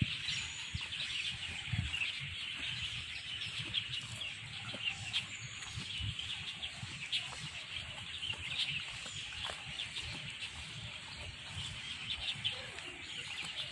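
A chorus of many small birds chirping and chattering without pause in the trees, with irregular low thuds from walking and handling of the phone.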